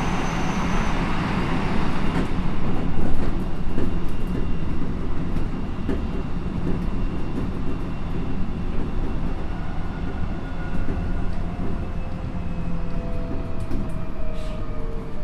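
Onboard running sound of an Odakyu 1000 series electric train, its wheels rumbling steadily on the rails, under the faint whine of its Mitsubishi GTO-thyristor VVVF inverter. In the last few seconds the inverter tone glides slowly downward.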